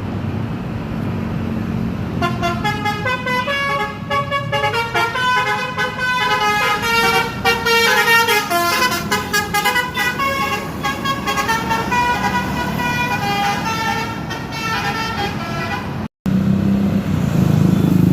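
A tour bus's basuri-type telolet horn playing a fast tune of quickly changing notes over the low running of bus engines. The tune starts about two seconds in and runs until a brief cut near the end.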